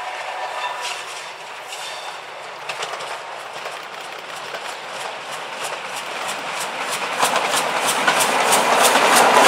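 Steam locomotive hauling a short train of vintage coaches approaching and getting steadily louder. In the last few seconds a quickening series of sharp clicks builds as the train draws near.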